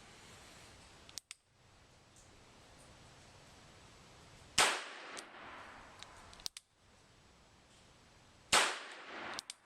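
Two shots from a Colt Police Positive .22 LR double-action revolver, about four seconds apart, each sharp crack followed by a short echo. A few lighter sharp clicks fall between the shots.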